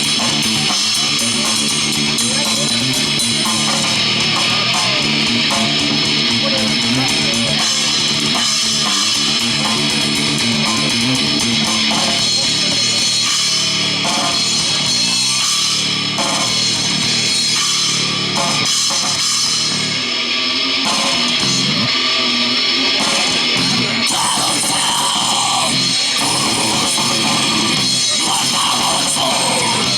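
Rock band playing live in a heavy metal style: electric guitar and drums playing steadily.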